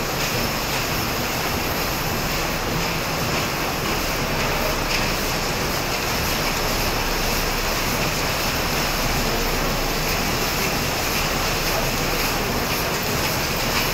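Steady, even din of a factory workshop with its machinery running.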